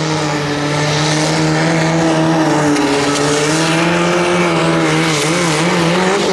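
Compact diesel pulling tractor's engine running flat out under load as it drags the weight sled, with a steady high note. Near the end the note wavers up and down as the tractor hops, then drops away as the pull ends.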